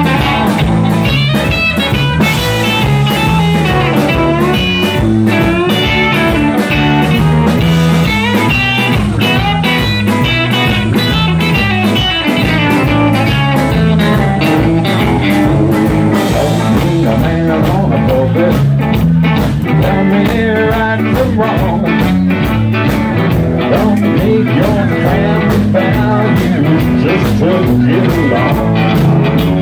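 A live blues-rock band playing an instrumental stretch: two electric guitars over a drum kit, with a bending guitar line above a steady low groove.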